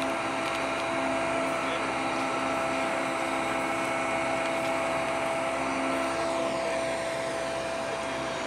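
Heavy-lift mobile cranes' diesel engines and hydraulic pumps running steadily under load while hoisting: a continuous mechanical drone with a steady whine over it.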